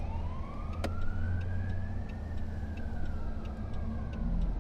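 Emergency-vehicle siren in a slow wail, rising in pitch for about two seconds and then falling, over the steady low rumble of a vehicle stuck in traffic. Faint regular ticking runs underneath.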